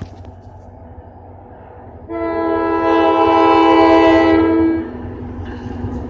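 Approaching diesel passenger locomotive sounding one long horn blast, a chord of several notes, starting about two seconds in and cutting off near the end. Before and after the blast the locomotive's engine rumbles low.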